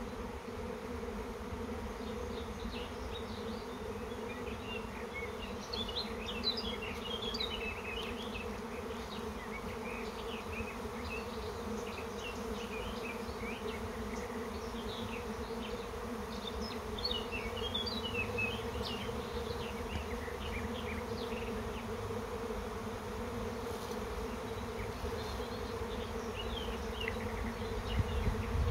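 A honeybee swarm in flight: a dense, steady hum of thousands of bees in the air as part of the colony leaves with the old queen to find a new home.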